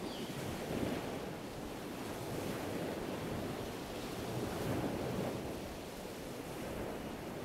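Steady rushing wash of water waves, swelling and easing a little.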